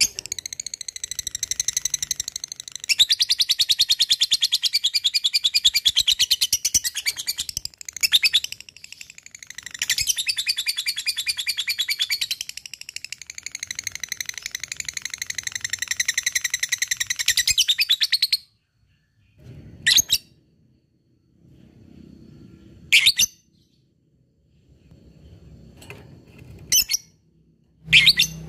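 Lovebird giving its long 'ngekek' chatter: a rapid trill of many short, high notes a second. It runs for about eighteen seconds with a brief break about eight seconds in, and is followed by a few separate sharp chirps.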